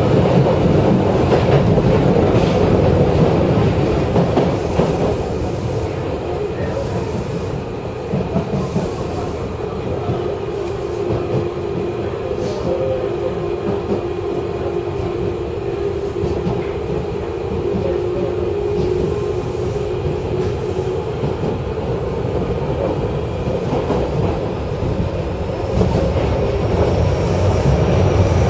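Osaka Municipal Subway Midosuji Line 21 series train running, heard from inside the car: a steady rumble of wheels on the track with scattered clicks and a held tone through the middle. It gets quieter after a few seconds and louder again near the end, where a faint rising whine comes in.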